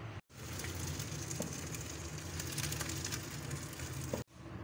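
Part-boiled rice and its cooking water poured from a pot into a metal colander, with a steady rush of draining water that starts just after a moment's gap and stops abruptly near the end.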